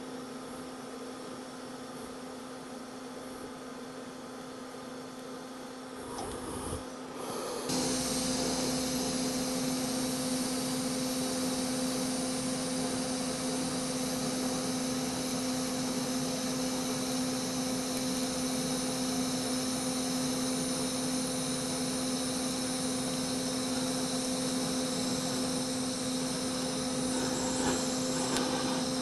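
TIG welding arc on a chrome-plated mild-steel exhaust tailpipe: a steady electrical hum and hiss. It grows louder and fuller about seven seconds in, then holds steady.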